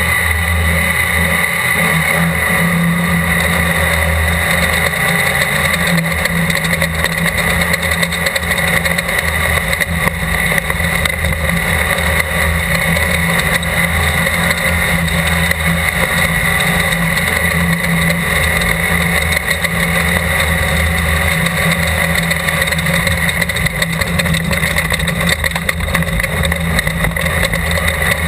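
Class 12 desert race car's engine running hard and steady at speed, with no let-up.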